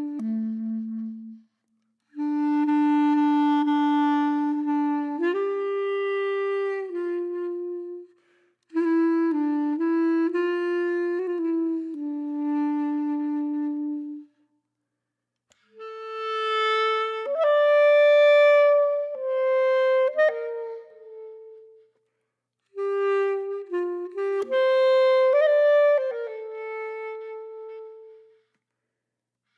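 Background music: a solo woodwind melody with a clarinet-like sound, played in phrases of held, stepping notes with short pauses between them.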